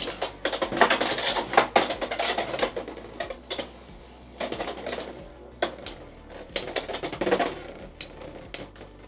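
Two Beyblade X tops, Night Shield and Drawn Dagger, spinning and colliding in a plastic stadium. Rapid clattering hits come thick in the first few seconds, then become scattered sharp knocks.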